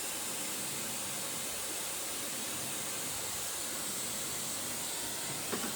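Steady, even hiss of rushing air, with a couple of faint clicks near the end.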